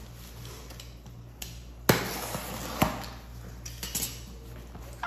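Cardboard shipping box being handled and opened by hand: a sharp snap about two seconds in, followed by about a second of rustling scrape, then another sharp knock and a few lighter taps.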